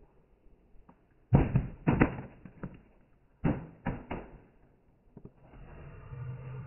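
Several heavy thumps and knocks in two groups, the first about a second and a half in and the second about three and a half seconds in, followed by a fainter steady low hum.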